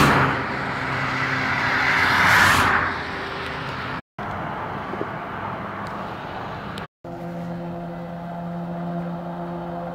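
A car passing close on a motorway, its tyre and engine noise swelling and fading over the first three seconds, followed by steady traffic noise with a low engine drone. The sound cuts out briefly twice.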